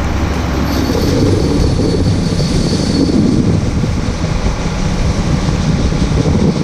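Heavy farm machinery engine running steadily, a dense low rumble, with a faint high whine for a couple of seconds about a second in.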